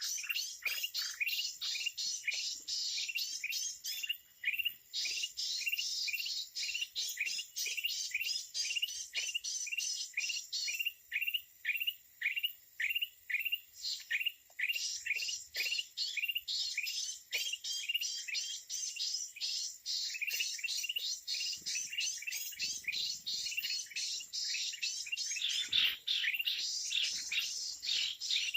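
Birds chirping: a rapid, steady run of short falling chirps, about three a second, with a denser chatter of higher notes over it.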